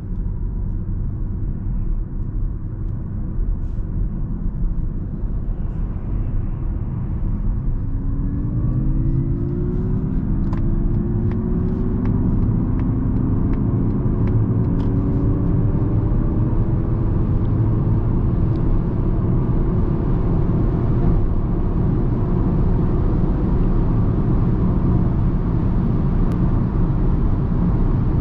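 Cabin sound of a 2021 Mazda MX-30 e-Skyactiv electric car accelerating hard: steady road and tyre rumble, with the electric motor's whine rising in pitch from about eight seconds in, then levelling off at speed. A row of light clicks sounds in the first half.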